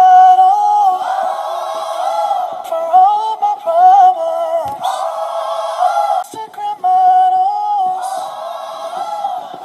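A pop song playing, led by a sung vocal melody that glides and holds notes; thin-sounding, with almost no bass.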